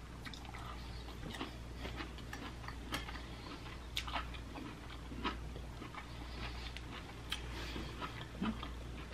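Chewing a mouthful of green beans close to the microphone: soft, irregular clicks and crunches of the mouth.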